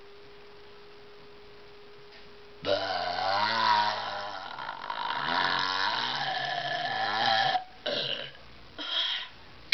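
One long, drawn-out burp lasting about five seconds, its pitch low and wavering, starting a little under a third of the way in as a try at how long a burp can be held. Two short sounds follow near the end.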